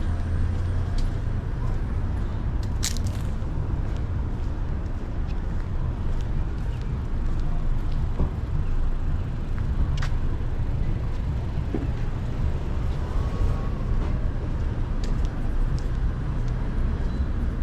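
Outdoor city ambience: a steady low rumble of road traffic, with a few short clicks or knocks, one about three seconds in and another about ten seconds in.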